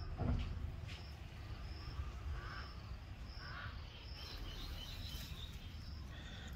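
Outdoor garden ambience: a short, high chirp repeats steadily a little more than once a second, with a few fainter calls in between over a low rumble.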